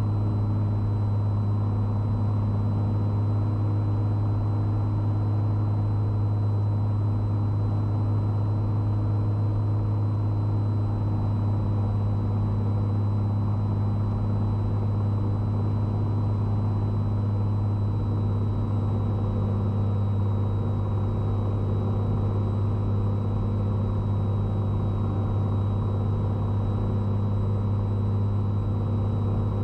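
Cessna 182T's six-cylinder Lycoming IO-540 engine and propeller droning steadily in the cabin on final approach with full flaps, a deep even hum that holds the same level without a break.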